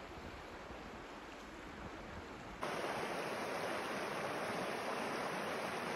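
Rushing water of a shallow mountain river running over rocks, a steady rush. At first it is fainter, under a low rumble. About two and a half seconds in it turns suddenly louder and closer, at a cut to a shot near the water.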